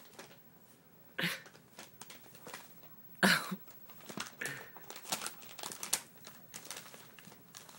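Brown paper bag crinkling and rustling in irregular bursts as kittens pounce on it and wrestle inside it, the loudest bursts about a second in and about three seconds in.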